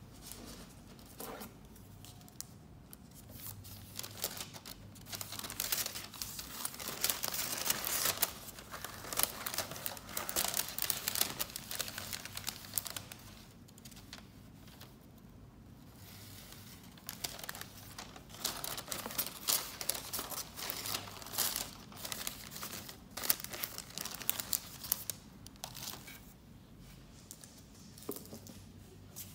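Paper wrappings and sleeves rustling and crinkling as they are handled and unfolded, in irregular busy stretches with a lull near the middle.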